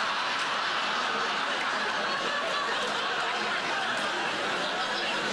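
Studio audience laughing loudly and at length.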